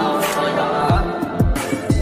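Background music with a deep, booming kick drum about every half second under held tones, in a hip-hop style.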